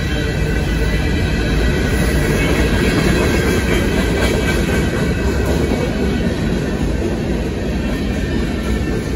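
Freight cars of a BNSF manifest train rolling through a grade crossing. The wheels make a loud, steady noise strongest in the low range, with several steady high tones above it.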